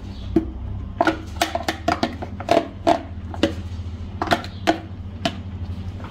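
A cooking utensil clinking and knocking against a pot, a dozen or so sharp, irregular knocks, as tuna is added to a stewing vegetable mixture and turned over. A steady low hum runs underneath.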